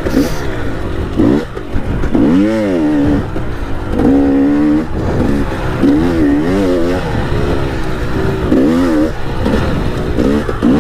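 KTM enduro dirt bike engine being ridden hard, its pitch repeatedly climbing and dropping, about once a second, as the rider opens and closes the throttle.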